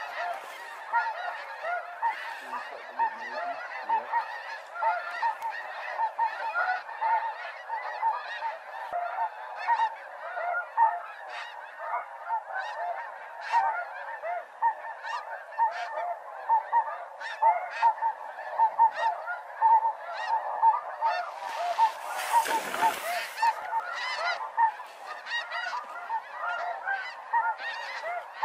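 A large flock of snow geese calling nonstop overhead, a dense chorus of overlapping high, short honks as the birds circle. A brief rushing noise cuts in about 22 seconds in.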